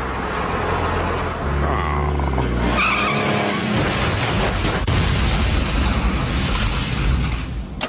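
Cartoon car sound effects: an engine running steadily, tyres squealing about two seconds in, then a long noisy crash from about three seconds and an explosion about five seconds in.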